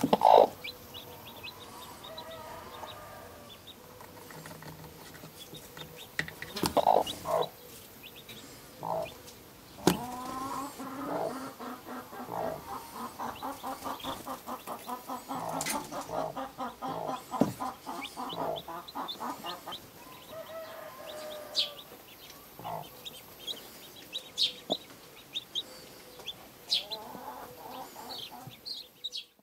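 Broody hen clucking defensively over her newly hatched chicks at a hand reaching into the nest, with a loud call at the start and a long run of rapid clucks in the middle. The chicks give short high peeps throughout, and there are a few sharp taps.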